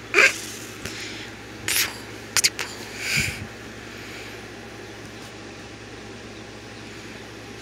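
Kittens play-fighting on a bedspread, with the phone rubbed and bumped close to the microphone: a handful of brief rustles, scrapes and knocks in the first three and a half seconds. After that only a steady low hum is left.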